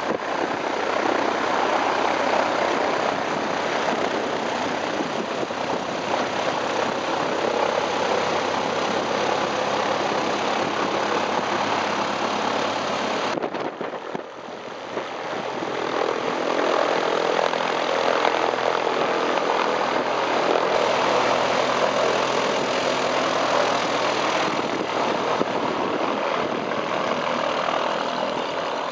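Zenith STOL CH 750 light aircraft's engine and propeller running at low power as it taxis. The sound dips briefly about halfway through, then swells again as the plane passes close.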